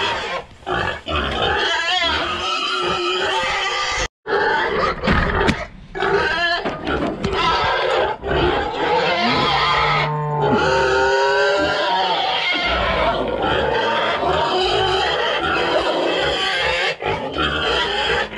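Several domestic hogs squealing and grunting loudly without let-up, a racket of overlapping high squeals, typical of hungry hogs at feeding time. There is a brief break about four seconds in.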